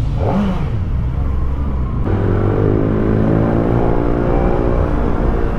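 Kawasaki Ninja ZX-4RR's 399 cc inline-four engine, running and then revving with its pitch climbing steadily from about two seconds in.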